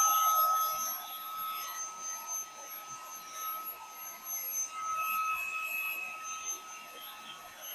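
Small VNOST handheld cordless vacuum running, its motor giving a steady high whine. It is louder for about the first second, then quieter and steady.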